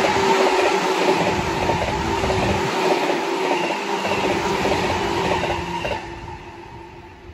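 A JR East E231 series 800 subseries electric train passing close by at about 120 km/h, its wheels rushing and clattering on the rails with a steady hum. The noise fades away about six seconds in as the last car goes by.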